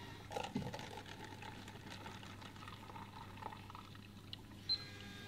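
Coffee vending machine dispensing coffee into a paper cup: liquid pouring over a steady machine hum. There are a few clicks in the first second, and a brief high beep near the end.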